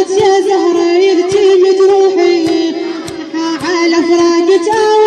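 A female mullaya chanting an Arabic lament for a mother, in long, wavering held notes. Sharp percussive strokes sound underneath the voice.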